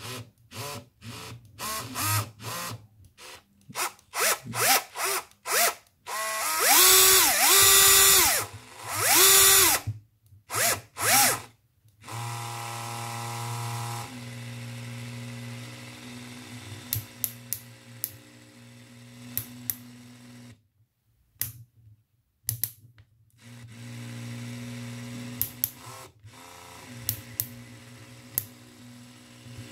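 Bosch PSR 1800 LI-2 18V cordless drill driver in screwdriver mode, running free with no load. First it gives a string of short trigger blips, then a few longer runs with the motor speeding up and slowing down, which are the loudest part. Later it runs steadier and quieter, with scattered sharp clicks and a couple of short stops.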